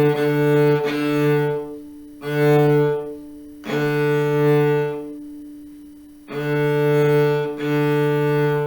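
Cello playing a simple beginner exercise: six bowed notes, all on the same low pitch, some short and some held longer, with brief rests between them.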